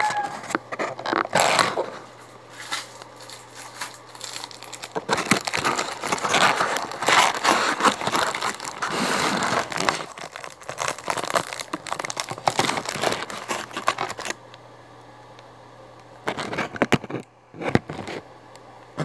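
Clear plastic wrapping crinkling and rustling as it is handled, in uneven bursts through most of the stretch, then quieter with a few sharp clicks near the end.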